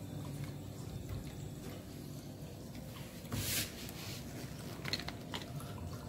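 CL-280 aquarium chiller and the pump feeding it, running with a steady low hum. A short rustle of handling is heard about three and a half seconds in.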